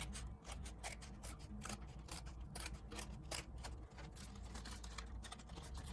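Scissors cutting a paper plate: many short, faint snips, a few a second, irregularly spaced.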